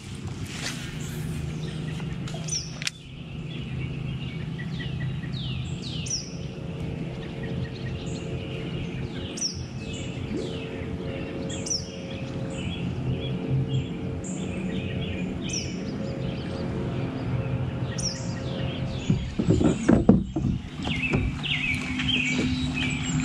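Songbirds calling: many short, falling chirps repeated all through, over a steady low hum. A brief louder knocking and rustling comes about twenty seconds in.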